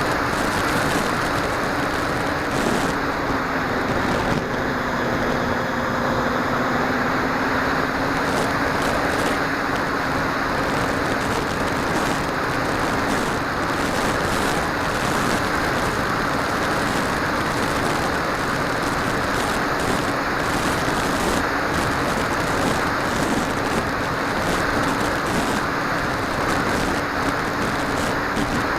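Steady drone of a small FPV aircraft's motor and propeller in flight, one even tone that sags slightly in pitch a few seconds in and then comes back, under a constant rushing wind noise.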